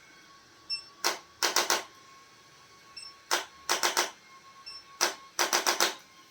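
Sharp clicks in three matching groups about two seconds apart: each is a single click followed by a quick run of three or four.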